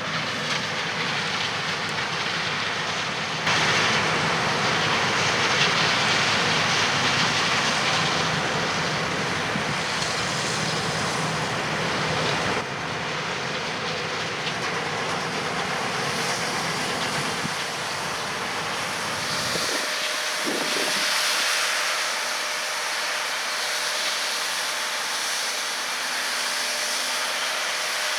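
A John Deere S680 combine harvesting corn, its engine and threshing machinery running as a steady, noisy drone. The tone and level change abruptly a few times.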